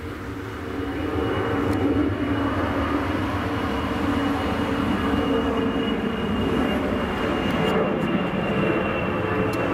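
Boeing VC-25A (Air Force One, a 747) climbing overhead after takeoff: the steady rumble of its four jet engines with a thin high whine, growing louder over the first couple of seconds.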